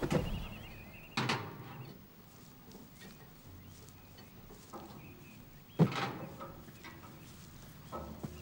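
Outdoor rural ambience with bird calls, broken by a few sharp knocks. The loudest knock comes about six seconds in.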